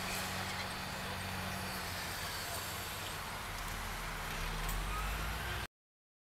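Steady hum of vehicle engines and road traffic, with a faint rising whine near the end. The sound cuts off abruptly into total silence shortly before the end.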